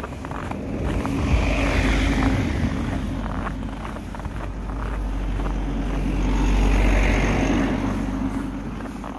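Cars driving past on a snow-covered street, their engine and tyre noise swelling and fading twice: once about two seconds in, and again, louder, around seven seconds.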